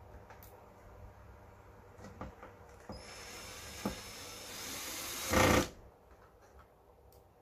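Cordless drill-driver running for about two and a half seconds, getting louder and ending in a brief loud burst, after a few light clicks of tool handling.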